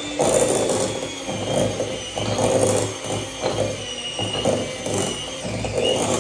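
Electric hand mixer running steadily, its beaters churning butter and sugar in a glass bowl to cream them. The motor's whine holds one pitch while the level swells and dips as the beaters work through the mixture.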